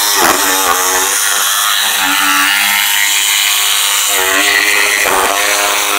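Bosch corded jigsaw running and cutting a circle through a thin plywood sheet, its motor note dipping briefly a few times as the blade takes the curve.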